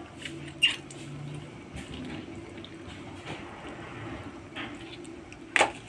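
Soto broth simmering in a wide pan, bubbling steadily, with a small sharp click about half a second in and a louder knock near the end.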